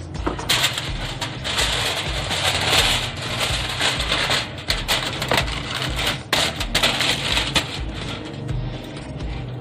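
Aluminium foil crinkling and rustling as it is unrolled and handled, full of sharp crackles.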